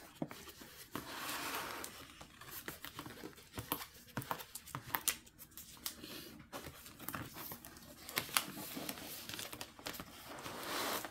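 Rustling and crinkling of a rolled diamond-painting canvas and its clear plastic cover film as it is unrolled and flattened by hand, with scattered small clicks and taps.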